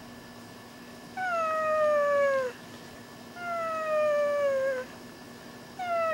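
Dog crying in long, drawn-out whines: three of them, each sliding slowly down in pitch and dropping off at the end, the third starting near the end.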